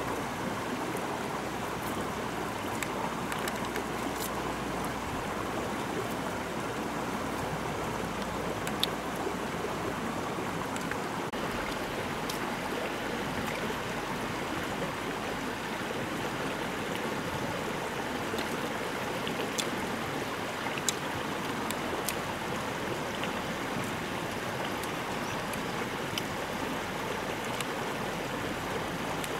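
Steady rushing noise like running water, with a few faint clicks scattered through.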